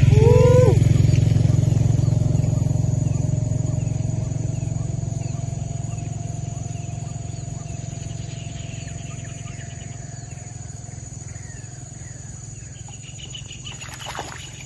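A passing vehicle's engine: a low drone, loudest at the start, fading away over the following seconds. Near the end comes a short splash as a small snakehead strikes the frog lure at the surface.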